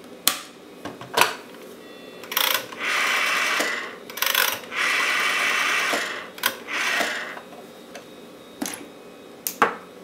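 A rotary telephone dial is wound round and whirs back several times as a number is dialled, with sharp clicks from the switch and handset before and after.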